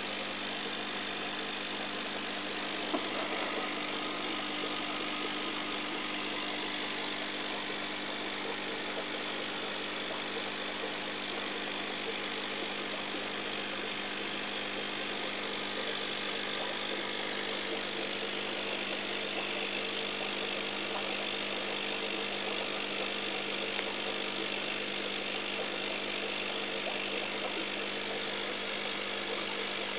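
Aquarium pump running with a steady mechanical hum over a constant hiss of moving, bubbling water, with one small click about three seconds in.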